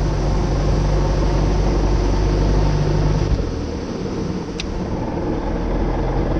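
Glastron 1700 runabout's engine running at speed under a rush of wind and water. About halfway through, as the boat turns, the engine note drops and the sound dips, then it steadies again.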